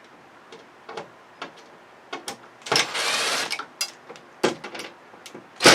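Cordless power drill-driver running in short bursts of about a second, backing screws out of a TV's steel back panel, with small clicks and knocks of parts being handled between the bursts.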